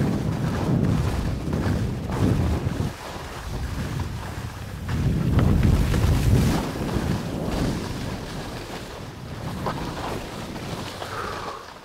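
Wind rushing over the microphone of a skier's camera during a fast downhill run, in gusts that swell and fade, loudest near the start and again about five to seven seconds in.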